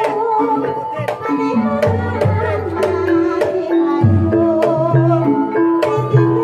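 Javanese ebeg dance accompaniment music playing: hand drum strokes and deep drum notes under a wavering melody line on pitched instruments.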